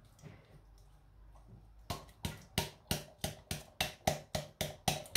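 Glass jar of chickpeas held upside down over a steel pot and knocked repeatedly to shake the chickpeas loose: sharp knocks with a short ring, about three a second, starting about two seconds in and getting louder.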